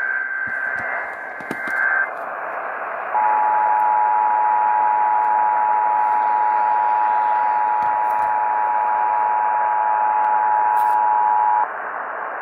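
Emergency Alert System test over a radio broadcast: a short burst of digital header tones near the start, then the EAS two-tone attention signal (853 and 960 Hz) held steady for about eight and a half seconds before cutting off, all under a steady broadcast hiss.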